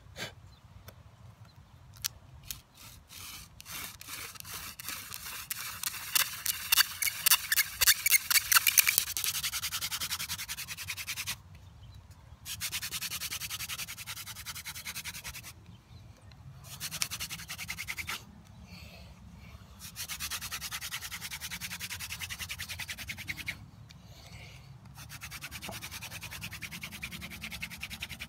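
Wooden hand-drill spindle spun back and forth between the palms in a wooden hearth: a dry, scratchy friction rubbing in bouts of a few seconds with short breaks between them, loudest and quickly pulsing in the first long bout. Smoke rising from the hearth by the end shows the friction is heating the wood dust towards an ember.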